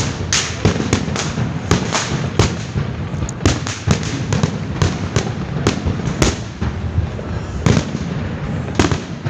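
Many fireworks going off together: a dense, irregular run of bangs and cracks, several a second, over a continuous rumble.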